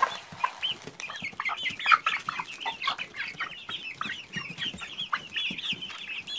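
A flock of eight-to-nine-week-old chicks peeping continuously in many short, high calls while pecking cracked corn and wheat from a gloved hand, with quick clicks of pecking mixed in.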